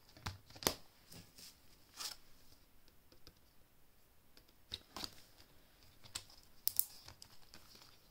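Soft rustling with a handful of light, scattered clicks as banknotes and laminated cash envelopes are handled and sorted.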